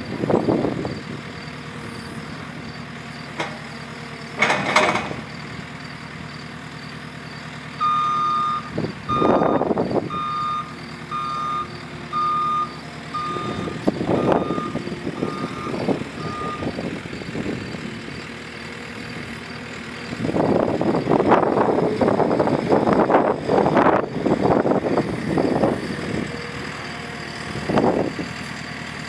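JCB Skidster skid-steer loader's diesel engine running, with its reverse alarm beeping at about one and a half beeps a second for some eight seconds, starting about eight seconds in. The engine note surges louder several times, most of all in a stretch of about five seconds after twenty seconds in.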